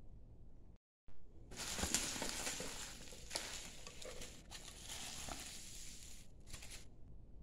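Bubble wrap crinkling and crackling as a tea tin is handled and pulled out of it, starting about a second and a half in, with one short final crinkle near the end.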